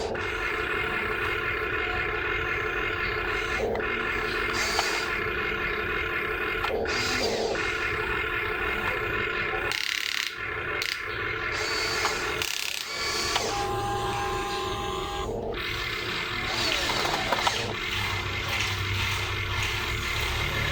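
Small electric motors and gearboxes of an RC excavator and dump truck whirring and grinding steadily, stopping briefly twice around the middle.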